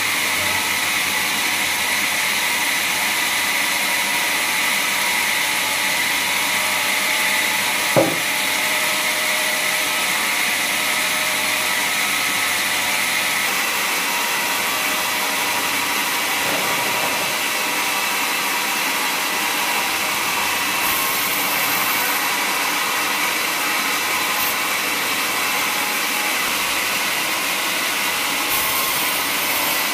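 Vertical bandsaw mill running, its band blade cutting lengthwise through a teak log with a steady high whir. There is a single sharp knock about eight seconds in.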